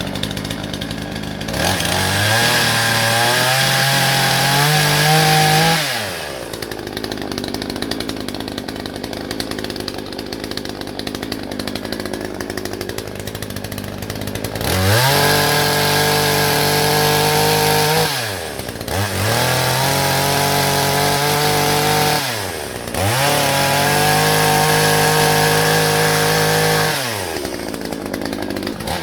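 Hyundai HYC6200X 62cc two-stroke petrol chainsaw revved to full throttle four times, in bursts of about three to four seconds, dropping back to idle between them, with a long idle after the first burst. These are cuts into wood during its first test with a new chain.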